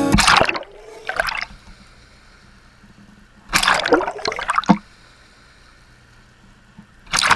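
Water splashing and gurgling in four short bursts, with quiet between them.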